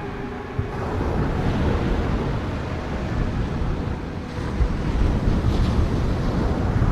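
Sea surf washing ashore, a steady rushing wash that swells louder a little past the middle, with wind buffeting the microphone.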